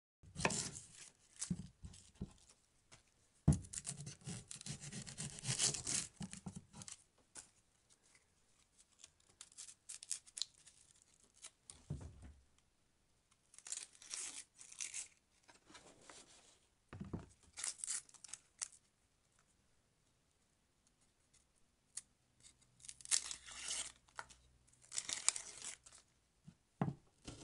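Plastic wrapping being snipped with scissors and torn and peeled off a cooked chicken salami log, crinkling and rustling in irregular bursts with short pauses between.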